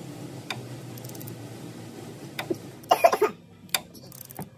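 Ratchet on the crankshaft pulley bolt and a screwdriver working a stretch-fit serpentine belt over the pulley: a few separate clicks and knocks over a steady low hum, with a loud cough about three seconds in.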